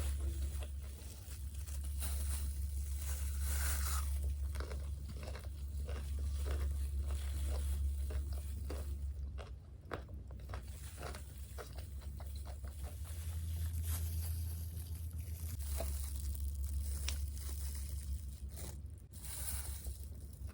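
Close-up crunching and chewing of crispy fried chicken and fries, with many short crisp bites and wet chewing. A steady low hum runs underneath.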